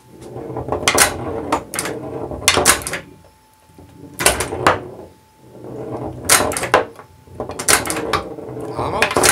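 Steel pinball rolling with a steady rumble across a bare chipboard playfield, while home-wound solenoid flippers with 3D-printed arms fire several times with sharp clacks, often in quick pairs as they snap up and drop back.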